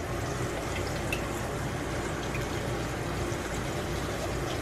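Eggs frying in hot beef tallow in a skillet: a steady sizzle with a few faint crackles.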